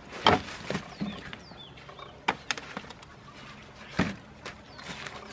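Ears of corn in their husks being handled and set down on banana leaves over a wooden table: rustling husks and a few sharp knocks, the loudest about four seconds in. A few faint high bird chirps come in about a second in.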